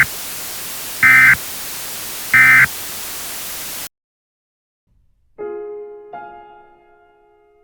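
Emergency Alert System end-of-message data bursts: short, loud warbling digital tones over steady radio static. The tail of one burst is followed by two more about a second apart, then the static cuts off suddenly. After a short silence music begins with a few sustained notes that ring and fade.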